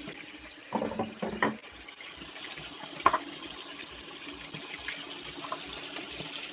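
Tap water running steadily, with a brief vocal sound about a second in and a sharp click about three seconds in.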